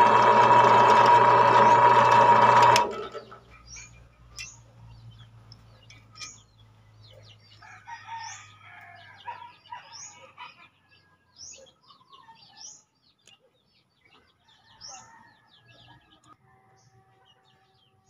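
Bench drill press running steadily as it drills a hole through a small metal plate, its motor cutting off abruptly about three seconds in. After that, faint short bird chirps every second or so, with a rooster crowing faintly around the middle.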